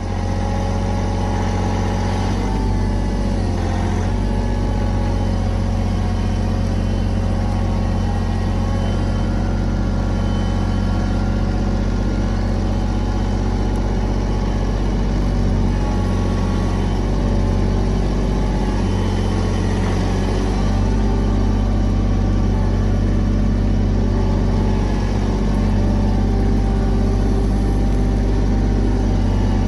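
Kioti compact tractor's diesel engine running steadily under load while pulling a plow through sod.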